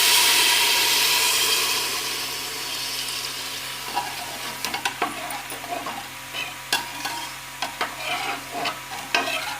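Red lentils and spices sizzling in hot oil in a pressure cooker pot: a loud hiss at first that fades over about two seconds. The frying then goes on quietly under a spoon stirring and scraping against the metal, with scattered clicks.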